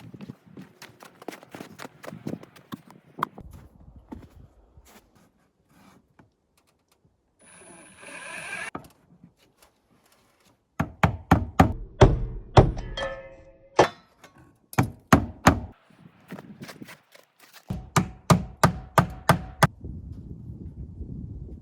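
Hammer driving nails into a wooden trim board: runs of quick, sharp strikes, with lighter knocking in between and a short burst of noise about eight seconds in.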